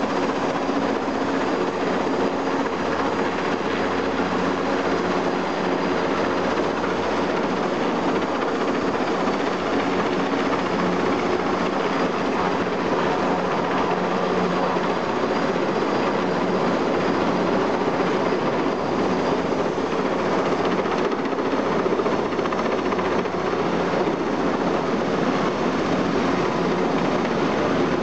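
Heavy-lift helicopter hovering overhead with a load on a long line, its engine and rotor running loud and steady.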